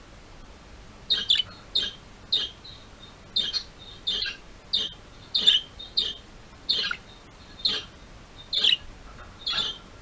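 Pet budgerigars (budgies) chirping: a run of short, sharp calls, roughly two a second and often in quick pairs, starting about a second in. This is the chirping the keeper calls happy budgie sounds.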